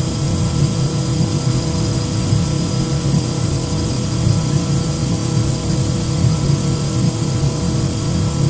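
A large engine running steadily at a constant pitch: a loud, unchanging drone with a faint high whine above it.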